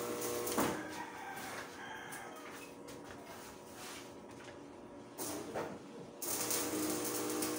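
Electric angle grinder grinding steel, throwing sparks. It runs with a steady whine, winds down about half a second in, spins up again about five seconds in and runs steadily after that.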